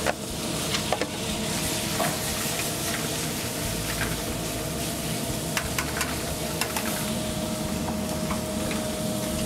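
Ground chicken sizzling in a hot skillet with olive oil, butter, onion and bell pepper, stirred with metal tongs that click against the pan now and then. A sharp clatter right at the start as the chicken goes in.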